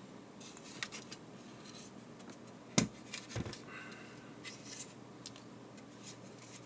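Parts of a PTZ camera being handled and fitted together by hand: scattered light clicks and scrapes, with a sharper knock a little under three seconds in and another just after.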